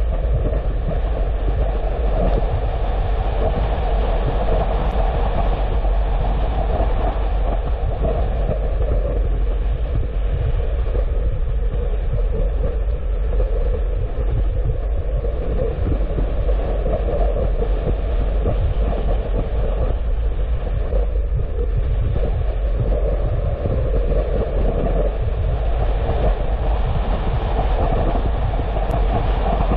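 Steady road noise of a car driving: a continuous rumble of tyres and engine that swells and eases a little now and then.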